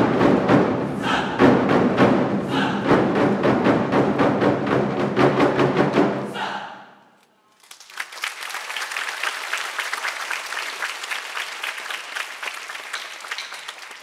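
A large ensemble of Chinese 24 Festive Drums beaten loudly together in a fast, dense pattern of strokes, dying away about six seconds in. After a short gap, audience applause starts and carries on.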